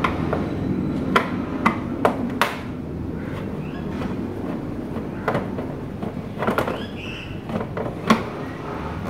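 Irregular sharp clicks and taps of a screwdriver working the screws out of an electric water heater's outer casing, over a steady low hum.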